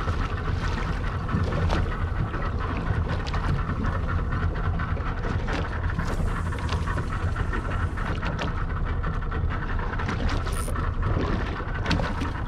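Boat engine running steadily at trolling speed, a continuous low hum, with wind noise on the microphone.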